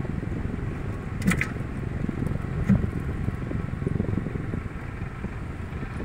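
Steady low rumble of an electric fan's airflow blowing over the microphone while it defrosts the freezer, with a couple of light clicks about a second in and near the middle.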